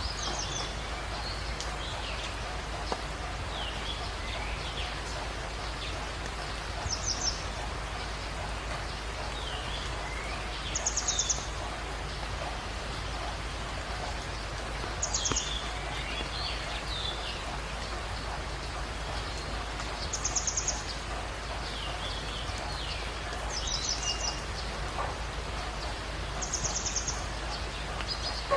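Forest birds at dawn. One bird repeats a short, rapid trill of high notes every four or five seconds, other birds give scattered chirps and whistles, and a steady rain-like hiss runs beneath them.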